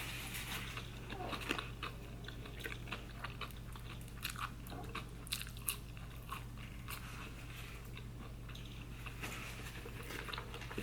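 A person chewing a mouthful of Beyond Meat burger: a string of short, irregular mouth clicks.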